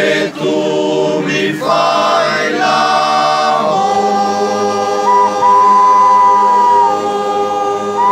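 Alpini men's choir singing a cappella in close harmony. The last line of the song moves into a long held final chord from about four seconds in.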